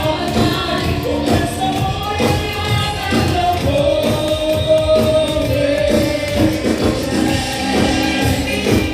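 Loud dance music with a singing voice and a steady beat, heard through a venue's sound system.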